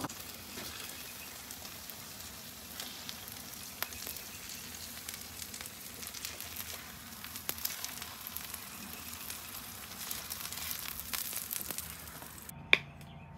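Smash burger patties with melted cheese sizzling steadily on a ceramic-coated gas flat-top griddle, with scattered light clicks and scrapes of a slotted spatula as the patties are lifted off the griddle.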